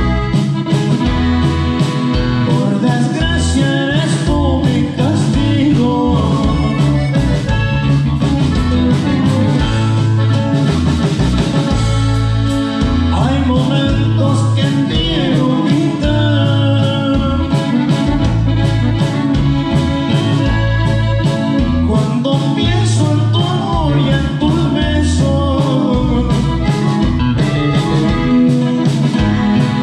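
Norteño band playing a song live: a man singing over drums, bass and acoustic guitar with a steady beat.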